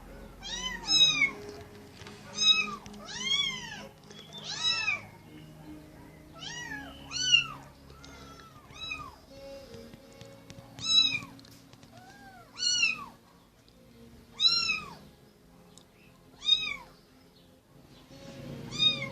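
Domestic cat meowing over and over, about fifteen short meows, each rising and falling in pitch, at uneven gaps. Faint background music runs underneath.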